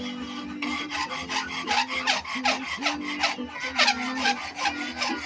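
Long hand file rasping along the steel edge of a bolo blade clamped in a vise, in quick back-and-forth sharpening strokes, about two to three a second. Each stroke has a short falling squeal, and the strokes grow stronger about a second in.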